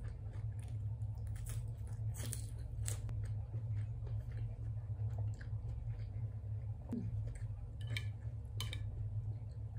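A person biting and chewing pizza and salad, with scattered short crisp clicks and crunches, over a steady low hum.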